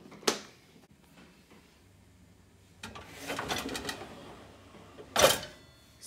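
Handling noise at an open, loaded dishwasher: a sharp plastic click just after the start, then a stretch of clattering and rattling from the racks and metal pots about three seconds in, and a loud clunk near the end.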